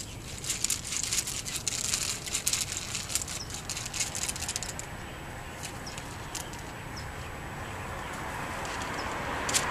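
Irregular rustling and light clicks, busiest in the first few seconds, then a quieter stretch with a vehicle approaching near the end.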